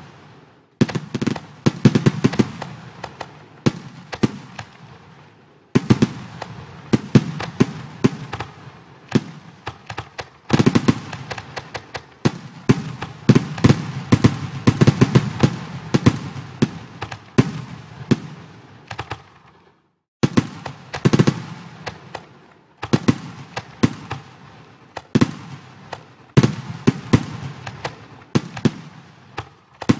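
Fireworks sound effects from a fireworks simulation program: clusters of bangs and crackling bursts in quick succession with a low rumble under them, broken by short lulls, one almost silent about twenty seconds in.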